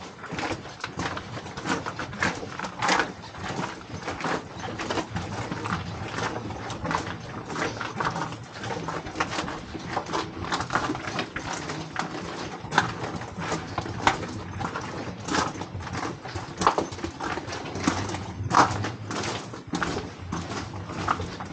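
Footsteps of a small group walking, an uneven run of short steps several a second.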